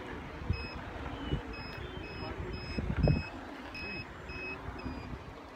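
Hoverboard beeping, a run of short high beeps about two a second, over low wind and rolling rumble.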